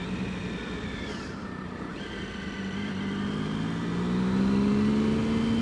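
Triumph Sprint's three-cylinder engine under way: the engine note drops as the throttle eases off about a second in, then climbs steadily and grows louder as the bike pulls away again.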